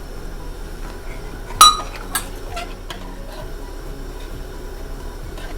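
Metal kitchen utensil clinking against a mixing bowl while dressing is mixed: one sharp, ringing clink about a second and a half in, then a couple of lighter taps.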